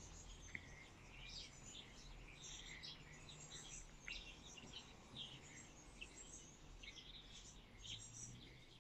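Faint birds chirping, short scattered calls throughout, over a low steady hum.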